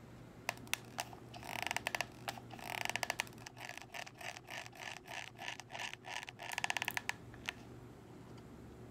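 Hot glue gun's trigger being squeezed repeatedly, its feed mechanism ratcheting as it pushes glue out. Three quick runs of clicks, about one and a half, three and seven seconds in, with slower single clicks between them.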